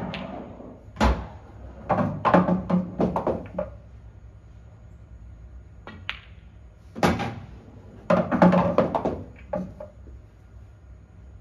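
Pool balls on an English eight-ball table: sharp clacks of the cue tip and cue ball striking the red and yellow balls, with dull thuds of balls knocking around and dropping into pockets, in two busy clusters a few seconds apart.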